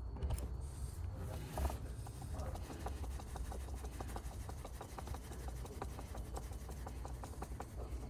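Hand screwdriver turning a screw into a yoke steering wheel's metal hub frame, with a run of quick light clicks, several a second, starting about two seconds in.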